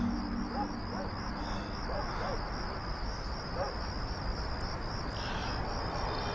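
Crickets chirping in a steady, fast, high trill over a low background hum.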